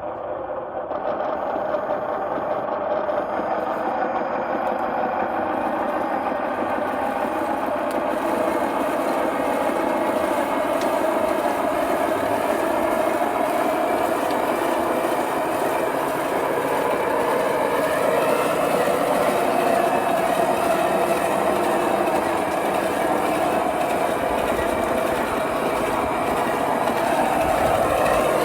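Scale RC bulldozer's electric drive and tracks running steadily, with a continuous whirring whine that lifts a little in pitch partway through.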